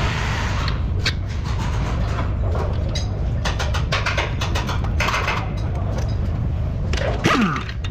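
Workshop noise: a steady low hum with scattered clicks and knocks from work on the car's front suspension, and a short falling squeal near the end.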